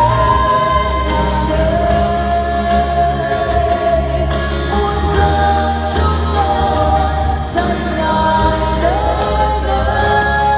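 A vocal trio, two men and a woman, singing a Christian worship song in Vietnamese in harmony through microphones, holding long notes over an accompaniment with a steady bass line.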